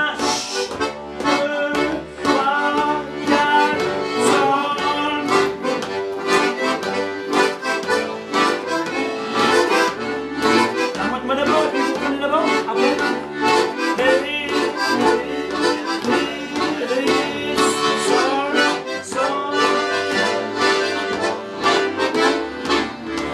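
Accordion playing an instrumental passage of a French song in a brisk, steady rhythm, with held chords under a running melody.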